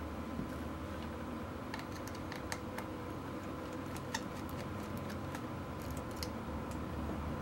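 Scattered light clicks and ticks of a small precision screwdriver turning out the tiny screws of the metal LCD shield inside a Canon Rebel T3, with the plastic camera body handled in the hands, over a faint steady hum.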